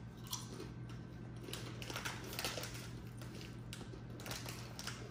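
Faint crunching of ridged McCoy's potato crisps being chewed, in scattered short crackles.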